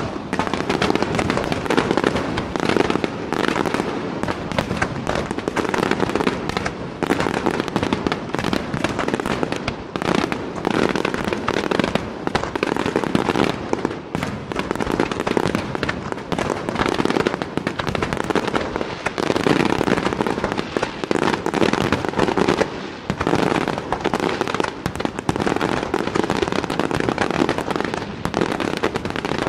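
Fireworks display: aerial shells bursting in a dense, continuous barrage of bangs, many overlapping, with no pause.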